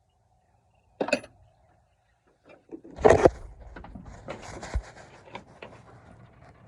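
Handling noises while working on a pickup truck. A short knock comes about a second in, then a louder clunk with a scrape about three seconds in, followed by a couple of seconds of light rattling and scuffing.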